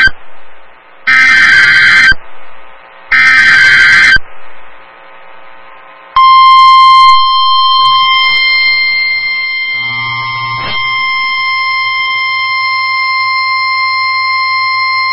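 EAS/SAME header: two loud, screechy digital data bursts about a second long each. About six seconds in a steady, piercing single-pitch tone starts and holds, the NOAA Weather Radio 1050 Hz warning alarm tone that announces a new warning. A faint low hum runs under it, as on a radio receiver.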